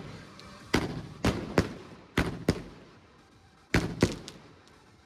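Alpha Fireworks Venom 30 mm cake firing: about eight sharp bangs in twos and threes, each with a short echoing tail, with a pause of about a second before the last three.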